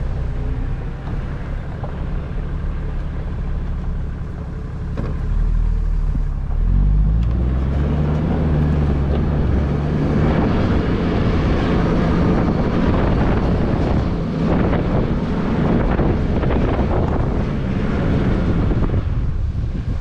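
A Toyota LandCruiser Troop Carrier's engine driving up a 4WD track. About seven seconds in the engine note rises and grows louder as it accelerates, with rough rattling and track noise on top, and it eases back near the end.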